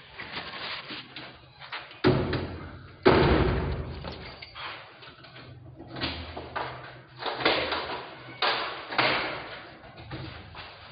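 A series of heavy thumps and knocks, each fading quickly; the loudest two come about two and three seconds in.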